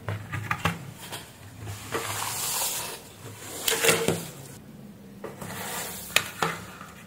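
Hands handling a router's circuit board and plastic case on a work surface: a few light clicks and knocks near the start, a longer rubbing scrape around two seconds in, and two more knocks later.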